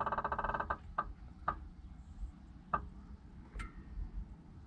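A run of light clicks and ticks: a quick cluster at the start, then single clicks at uneven intervals, thinning out toward the end.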